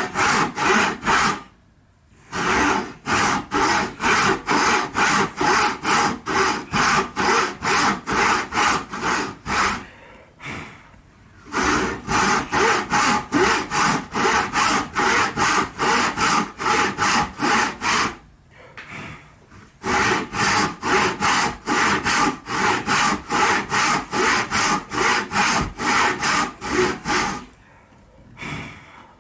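Hand saw cutting through wood in fast, even strokes, about three a second, in runs broken by short pauses.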